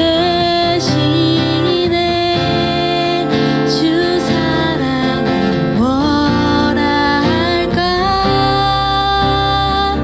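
Live worship music: strummed acoustic guitar with a slow, sliding sung melody over it.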